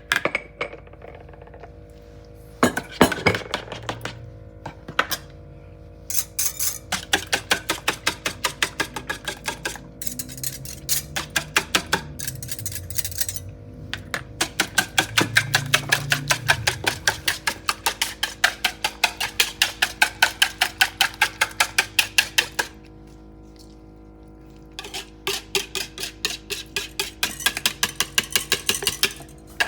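A utensil clinking rapidly and rhythmically against a mixing bowl, about four to five strikes a second, in several runs broken by short pauses: stirring salt and black pepper into the potato and egg latke mixture.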